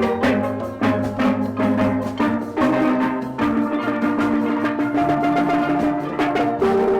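Music with a steady struck-percussion beat under held chords that change every second or two.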